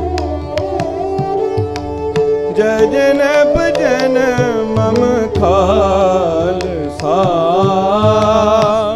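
Sikh devotional kirtan: tabla strokes under a bowed melody on taus and a second bowed, fretted string instrument. Singing voices join in over the strings from about halfway through.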